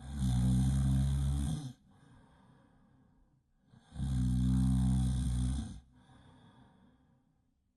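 Really loud snoring: two long snores about four seconds apart, each with a quieter breath between them.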